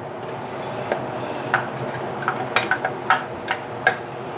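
Sliced okra scraped with a spoon out of a glass measuring cup into a steel pot, with several sharp clinks of the spoon against the glass and pot over a steady low sizzle from the pan.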